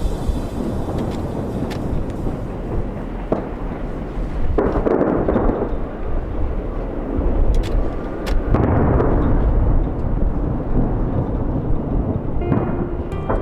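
Aerial fireworks going off in a continuous barrage: deep rolling booms with sharp cracks, swelling about four and a half seconds in and again from about eight seconds in.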